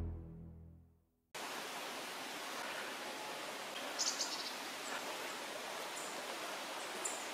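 Music fades out over the first second into a moment of total silence, then a steady, even background hiss of outdoor ambience takes over, with a couple of brief high-pitched chirps about four seconds and seven seconds in.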